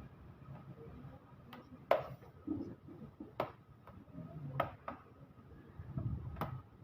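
Sharp clicks and taps of small hard objects being handled, about six of them unevenly spaced, the loudest just before two seconds in.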